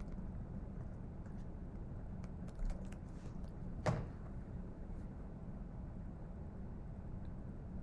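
Faint scratching of a pen writing on paper, then one sharp tap about four seconds in, over a steady low hum.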